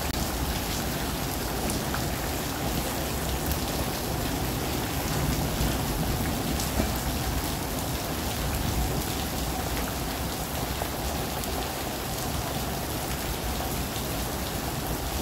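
Heavy monsoon rain falling steadily, a dense, even hiss.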